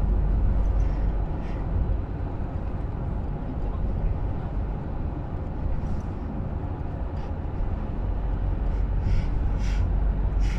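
Steady low rumble of engine and tyre noise heard inside the cabin of a car driving on a highway, with a few short faint hissy ticks.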